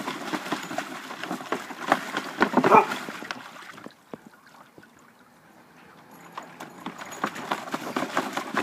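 A dog pawing and stomping in shallow water in a plastic paddling pool, a rapid run of splashes. The splashing stops for about two seconds a little before the middle and then starts up again.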